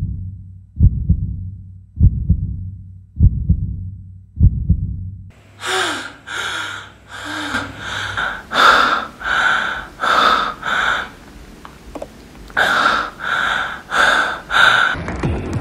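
A slow heartbeat sound effect, deep thumps a little more than once a second. About five seconds in it gives way to a person panting hard in quick, gasping breaths, about two a second, with a short pause near the end, as in panic or terror.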